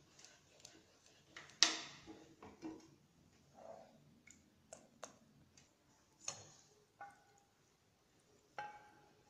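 Scattered light knocks and clinks of a saucepan and silicone spatula as chocolate cream is stirred and poured into a metal sieve. The loudest comes about a second and a half in, and a few later ones ring briefly.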